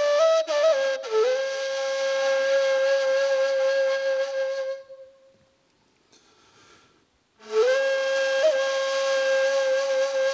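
Solo ney, the Turkish end-blown reed flute, playing a long held note after a few quick ornaments. The note fades out just before the middle. After a pause of about two and a half seconds a new long note begins, with small ornaments.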